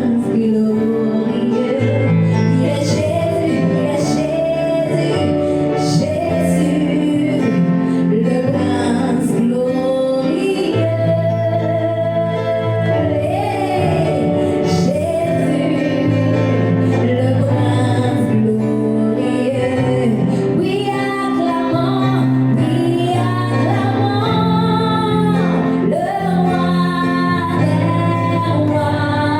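Gospel worship song: a woman singing over sustained instrumental backing with a steady bass line.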